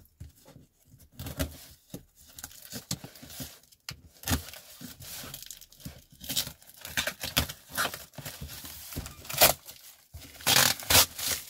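A knife slitting the packing tape and black plastic wrap of a parcel, with scraping, crinkling and tearing of the plastic. The loudest tearing comes in the last couple of seconds, as the plastic wrapping is ripped open and pulled away.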